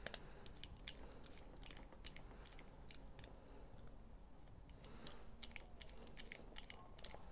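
Faint, irregular small clicks of a screwdriver turning a tiny screw into a folding knife's handle scale, with the clicks coming thicker about five seconds in.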